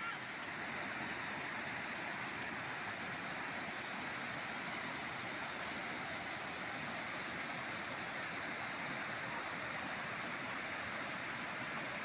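Steady rushing of a waterfall and its rapids pouring over rocks.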